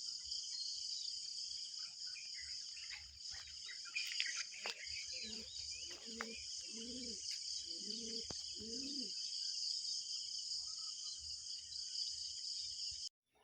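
Steady high-pitched chorus of crickets. About halfway through, four short low animal calls come a little under a second apart. The sound cuts off abruptly just before the end.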